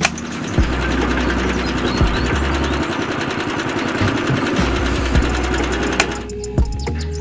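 Small electric motor of a toy concrete mixer switched on, spinning the tin-can drum with a steady, fast buzz, then switched off about six seconds in, cutting out suddenly.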